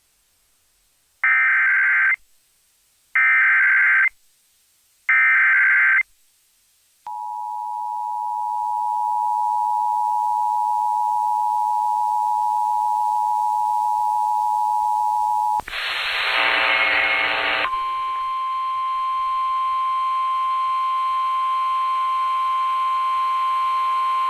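Emergency Alert System weather radio alert: three short bursts of SAME header data tones about a second apart, then a steady alert tone for about eight seconds. A brief harsh, noisy blast follows, then another steady tone that runs on. This announces a National Weather Service severe thunderstorm warning.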